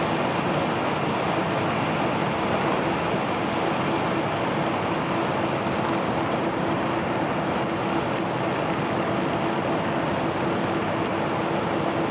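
Cargo barge machinery running steadily under an even rushing noise, with a faint steady hum held throughout.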